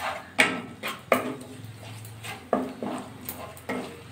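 A wooden spatula stirring and scraping a thick spice paste in a non-stick pan, knocking sharply against the pan about six times.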